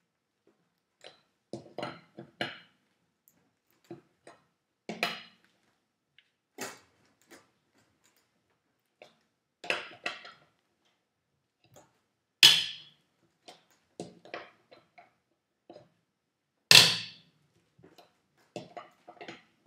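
Tire iron clinking and clanking against the wheel's lug nuts as they are tightened one after another: scattered metal clicks and knocks, with two much louder clanks in the second half.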